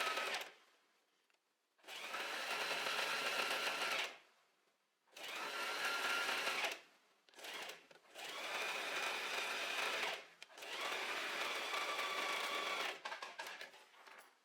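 Electric sewing machine stitching in short runs, starting and stopping about five times with brief pauses as the fabric is turned around the circular seam, its motor giving a steady whine during each run. A few small clicks and fabric rustles near the end.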